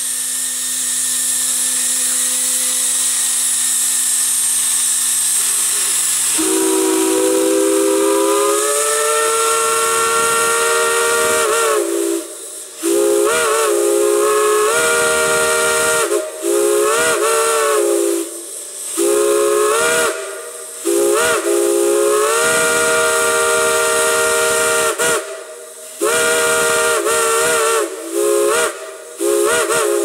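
Steam hissing with a low steady hum. About six seconds in, a chime steam whistle sounds a long chord blast that rises slightly in pitch as the valve opens further. Then come a string of shorter blasts, each bending up as it starts and down as it cuts off.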